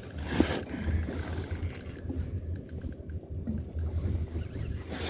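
Gusty wind rumbling on the microphone, with one short sharp knock about half a second in.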